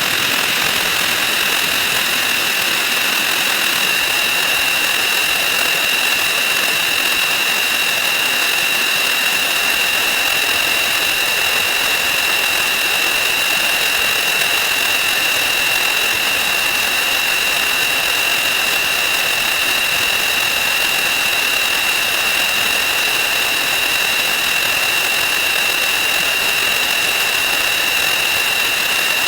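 Counting sound effects sped up 4,096 times until they blur into one continuous steady hiss, with a high steady whine on top.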